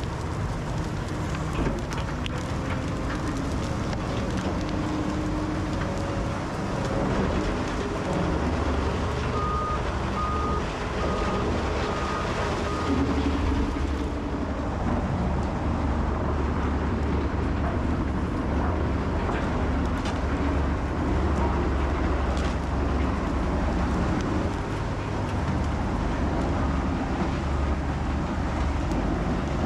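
Heavy equipment running, a steady low engine drone under dense noise that grows heavier about a quarter of the way in. A short run of evenly spaced backup-alarm beeps sounds about a third of the way in.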